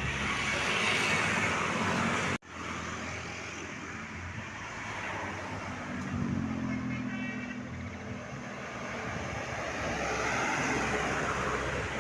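Road traffic noise of vehicles passing along a road, with a steady rumble. The sound drops out for an instant about two and a half seconds in.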